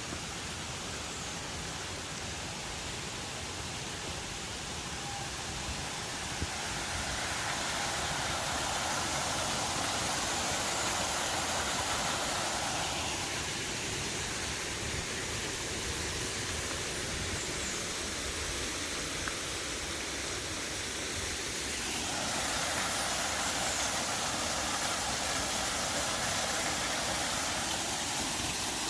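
River water rushing steadily over rocks, swelling louder twice.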